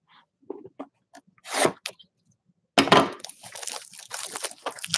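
Plastic shrink wrap on a sealed trading card box being handled and torn open. A few light taps and a short rustle come first, then steady crinkling and tearing from about three seconds in.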